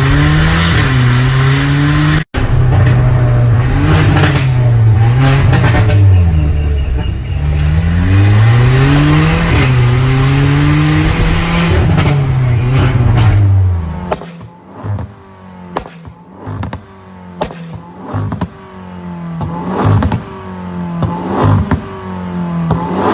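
Volkswagen Polo GT's 1.2 TSI turbocharged four-cylinder engine through a free-flow stainless-steel performance exhaust, revved hard up and down again and again. About two thirds of the way through it drops to a low idle, and sharp, irregular pops and crackles come from the exhaust.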